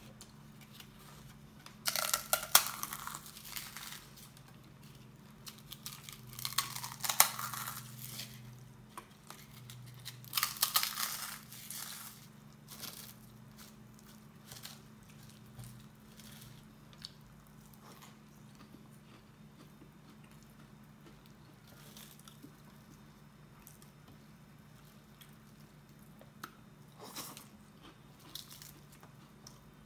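Crunchy fried snack being bitten and chewed close to the microphone: three bouts of loud crunching in the first twelve seconds, then only faint chewing and ticks, with one short crunch near the end.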